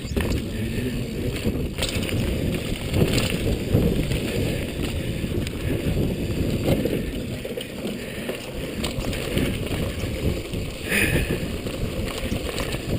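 Wind buffeting a rider-worn action camera's microphone while a downhill mountain bike rolls fast over dirt trail, with scattered clicks and knocks as the bike rattles over bumps.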